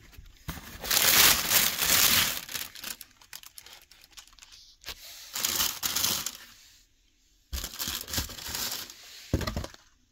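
Tissue paper crinkling and rustling in a cardboard shoe box as a sneaker is handled, in three bursts, the first and longest the loudest, with a dull knock near the end.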